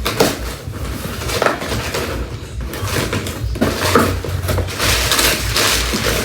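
A package being opened by hand: packaging rustling, crinkling and tearing in a run of irregular scrapes and crackles.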